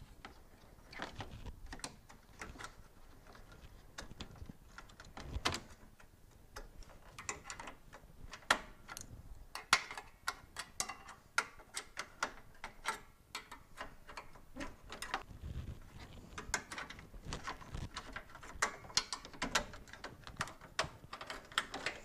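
Irregular clicks, taps and snaps of a screwdriver and plastic clips as a plastic guard is pried out of a car's radiator support, a few sharper snaps standing out among them.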